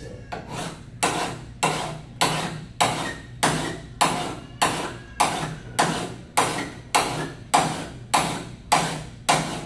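Hand file rasping along the bevelled cutting edge of a steel rotary lawn mower blade, sharpening it. The file strokes repeat at a steady rhythm of a little under two a second, each starting sharply and trailing off.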